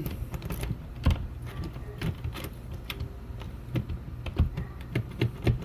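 Key being inserted into a newly installed doorknob lock and turned, a run of small irregular clicks and rattles from the key and lock cylinder.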